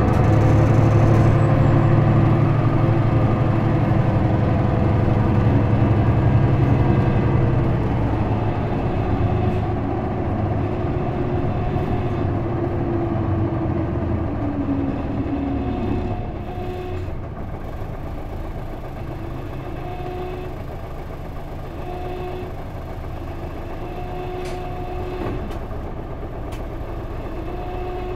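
Cabin sound of an Isuzu Erga city bus with manual transmission and its straight-six diesel: the engine pulls hard at first, then eases off and its pitch falls until about halfway through as the bus slows. After that it runs quieter and steadier, with a short repeating beep about every two seconds.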